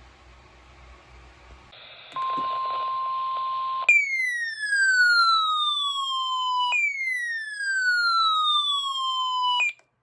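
NOAA Weather Radio's steady 1050 Hz warning alarm tone, heard over radio hiss for a little under two seconds. Then an electronic siren alert sweeps down in pitch twice, about three seconds a sweep, and cuts off abruptly.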